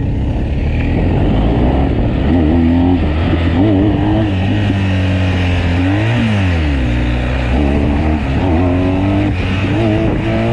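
BMW R 1250 GS Adventure Rally's boxer twin engine running under way, with wind noise. The revs climb and drop about six seconds in, then climb again near the end.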